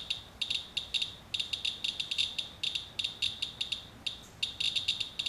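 Handheld Inspector Geiger counter chirping once for each detected count: short, high-pitched chirps at an uneven, fast rate, several a second, sometimes bunched together. The counts come from a paper-towel wipe of rain that the owner takes for radioactive fallout.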